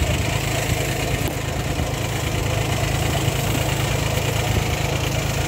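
VST Shakti VT224-1D mini tractor's three-cylinder diesel engine running steadily as the tractor drives slowly.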